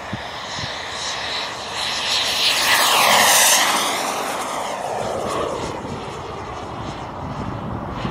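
Turbine of a BVM Ultra Bandit model jet flying a low pass: a jet whine and rushing noise that builds to a peak about three seconds in, drops in pitch as the plane goes by, then fades as it climbs away.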